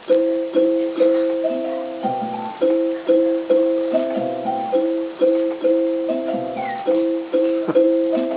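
Background piano music: a simple melody in two-note chords over a low bass line, the same short phrase repeating about every two and a half seconds.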